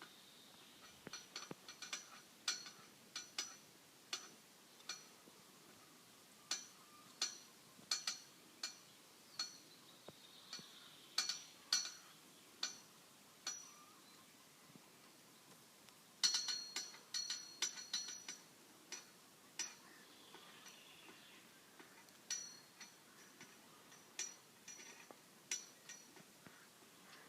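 Highland cattle scratching their necks, making irregular ringing clinks and rattles, sometimes several in quick succession, with a thick run of them about sixteen seconds in.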